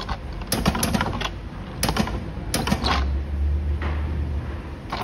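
Battery spot welder welding connector strips onto a lithium-ion cell pack: three quick runs of sharp clicks and snaps, followed by a low hum lasting about a second and a half.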